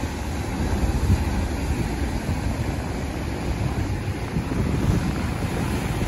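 Ocean surf breaking and washing over rocks, a steady rush of foaming water with no single crash standing out. Wind buffets the microphone with an uneven low rumble underneath.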